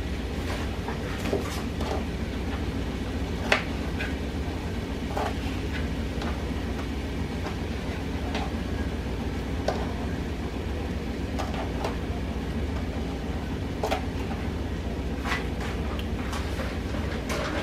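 Knife cutting broccoli florets in half, irregular single knocks a second or two apart, over a steady low hum.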